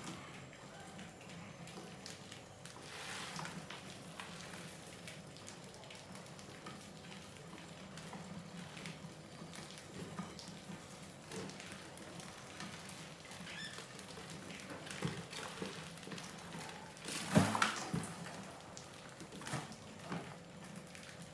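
Many mice scrabbling and pattering on a paper-covered bucket lid and wooden ramps, with light scratching and rustling. There is a louder sudden knock about 17 seconds in, followed by a few smaller taps.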